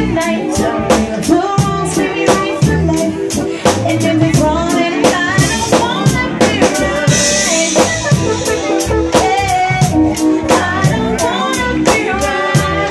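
Live band playing: drums on a steady beat with keyboard and guitar, and a woman singing.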